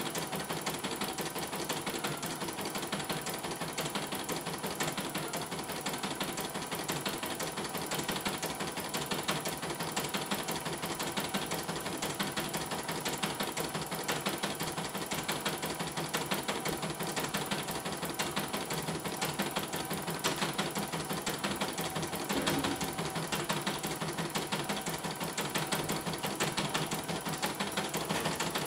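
CNY E900 portable computerized embroidery machine stitching a design: a fast, even clatter of needle strokes that keeps a steady pace.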